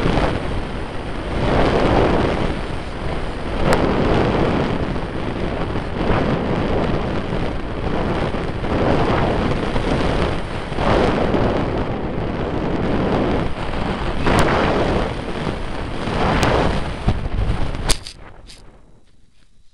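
Wind rushing and buffeting over the onboard camera microphone of a flying radio-controlled model plane, swelling and easing in gusts, with a few sharp clicks. About eighteen seconds in the noise drops away sharply as the plane comes to rest in grass.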